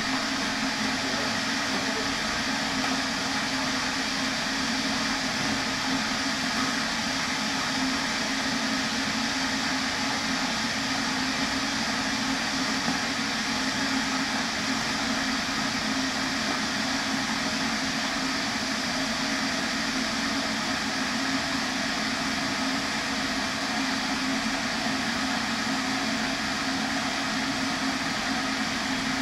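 Kettle heating water: a steady hiss with a low hum, unchanging in level.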